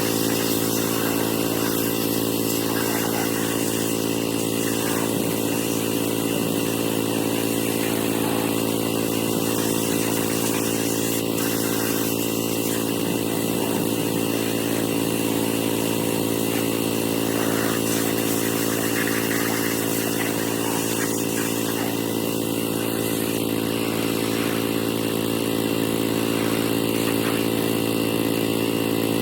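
Petrol pressure washer engine running at a steady speed, with the hiss of the spray over it; the pitch and level hold constant throughout.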